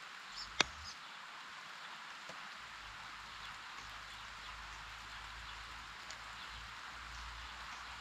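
Steady hiss of light rain falling on grass and foliage, with one sharp drop-tap close to the microphone about half a second in. Faint bird chirps come through near the start.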